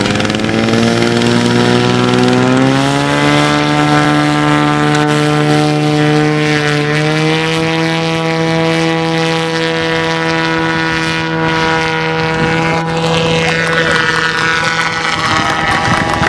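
Propeller engine of the OS Wifanusa flying boat at takeoff power during its run across the water, its pitch climbing over the first few seconds and then holding high and steady until lift-off. Near the end the pitch sags slightly.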